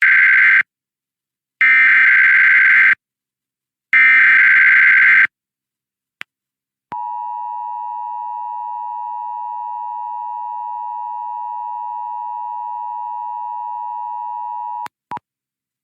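Emergency Alert System SAME header: three short bursts of data tones, the first already under way, followed after a pause by the steady two-tone EAS attention signal, held for about eight seconds before it cuts off. Together they open the coordinated monthly test of the emergency alert system.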